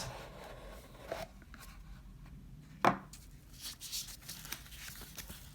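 A box being handled during an unboxing: a small knock about a second in, a sharp knock about three seconds in, then light rustling and scraping of the packaging.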